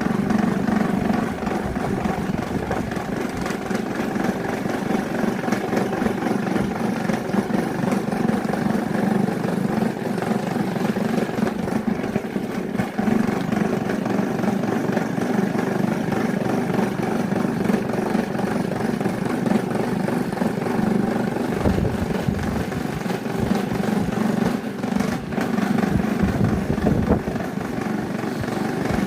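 Small electric fan motor running steadily with a plastic bin lid spinning in place of its blades: a constant hum, with some low knocks in the last third.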